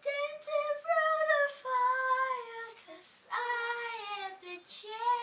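A young girl singing a song on her own, holding long, slowly sliding notes with short breaks between phrases.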